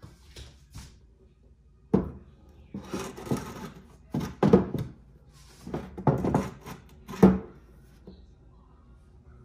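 A series of knocks, thuds and rubbing sounds of objects being handled and set down, the loudest about two seconds in and again a little after seven seconds.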